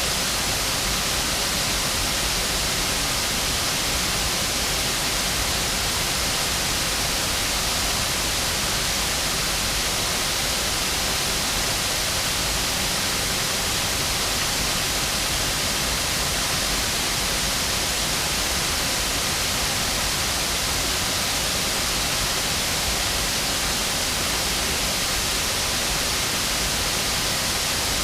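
Waterfall: river water pouring over the falls in a steady, unbroken rush.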